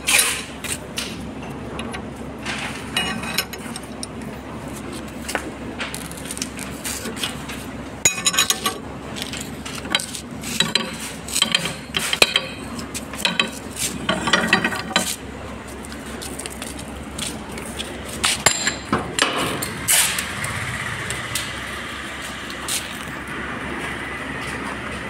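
Irregular metal clanks and ringing clinks of a ring spanner and steel parts on a reel shaft and its bolted cone chuck as the chuck is fitted into a paper reel's core and its bolts are tightened.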